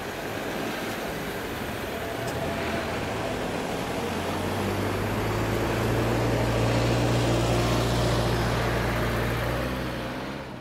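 Cars and a van driving across a railway level crossing. A low, steady engine hum comes in about four seconds in and grows louder as a vehicle draws up close.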